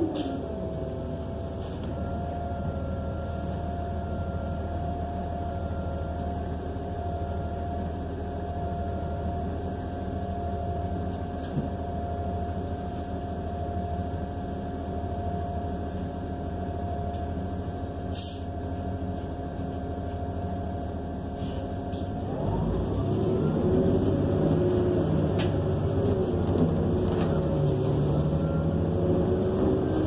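Interior of a New Flyer XN40 natural-gas bus with its Cummins Westport L9N engine and Allison transmission: a steady drivetrain hum and whine. About 22 seconds in it gets louder as the bus accelerates, with the engine and transmission whine rising in pitch in repeated sweeps.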